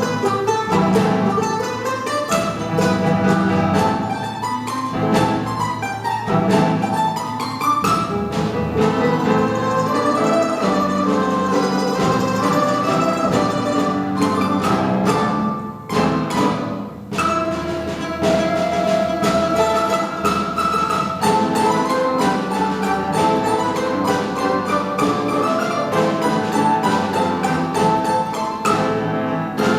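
A Russian folk-instrument orchestra playing, with plucked strings to the fore. The music thins briefly about halfway through, then carries on at full strength.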